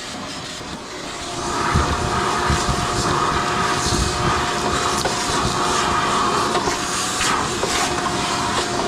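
Vacuum cleaner running with a steady whine, sucking lint and hair out of an opened clothes dryer's cabinet, with small rattles and clicks of debris going up the nozzle. It gets louder about a second and a half in.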